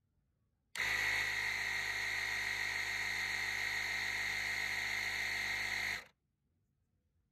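Small home-made electric air compressor switched on about a second in, running with a steady, even buzz for about five seconds, then switched off. It is pumping air through its hose into a tyre.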